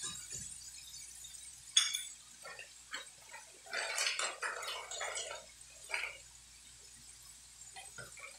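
Kitchen handling sounds: a sharp clink about two seconds in as the wok spatula is set down, then a burst of rustling from a plastic seasoning packet being handled and shaken over the wok, with a shorter rustle about six seconds in.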